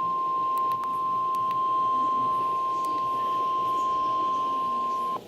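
NOAA Weather Radio warning alarm tone: a single steady 1050 Hz beep held without change, cutting off suddenly near the end. It is the alert that a severe thunderstorm warning message is about to be broadcast.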